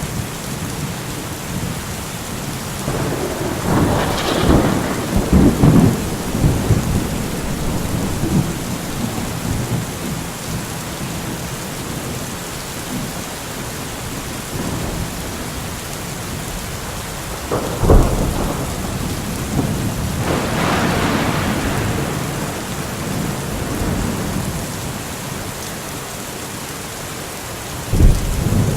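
Steady heavy rain with rolling thunder. A long rumbling peal comes a few seconds in, a sharp crack and another long roll follow past the middle, and a further crack comes near the end.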